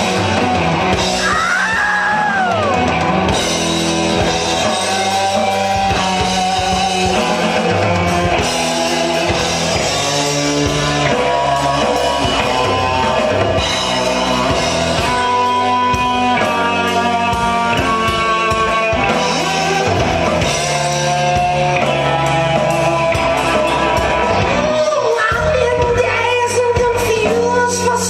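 Live rock band playing: electric guitar and bass with a drum kit, loud and steady, in a large echoing hall. A lead vocal wails with a falling slide about a second in and comes back with singing near the end.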